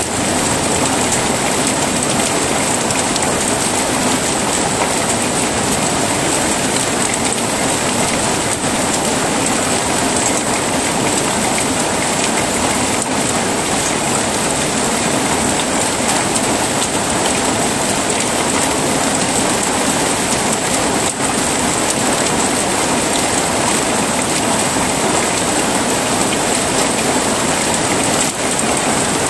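Heavy rain falling steadily, a dense even hiss without thunder.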